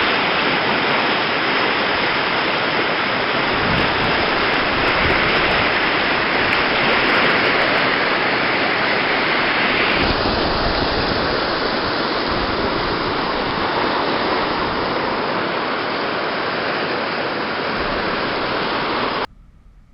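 River rapids: a loud, steady rush of whitewater. The tone shifts about halfway through, and the rush cuts off suddenly near the end.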